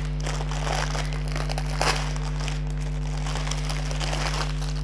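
Plastic packaging crinkling and rustling as a bag of small diamond-painting drill packets is handled and worked open by hand, over a steady low hum.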